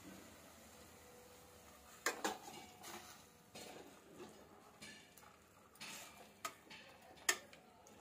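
Slotted steel spoon stirring grated beetroot and milk in a stainless-steel pan, knocking and scraping against the pan in irregular clinks from about two seconds in.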